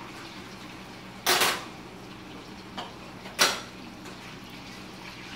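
A utensil knocking sharply against a skillet on the stove twice, with a faint tap in between, over a steady sizzle of food frying in the pan.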